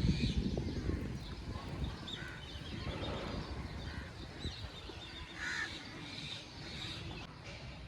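Crows cawing a few times, the clearest call about five and a half seconds in, over a low rumble that is loudest at the very start.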